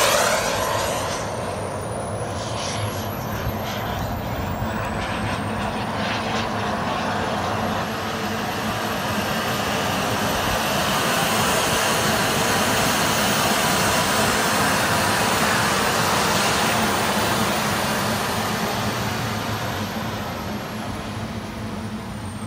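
Radio-controlled model jet flying: a steady jet rush with a high whine that slowly climbs in pitch and then slides down near the end, growing louder toward the middle and fading as it draws away.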